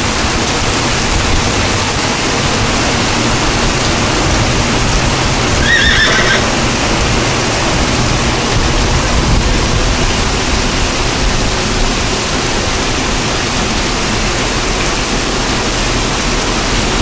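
Heavy rain pouring down steadily. About six seconds in, a horse gives a brief whinny.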